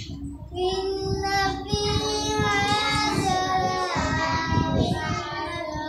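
A boy reciting the Quran aloud in melodic qira'at style, holding long drawn-out notes that bend and waver in pitch. The chant starts about half a second in and breaks briefly for a breath near four seconds.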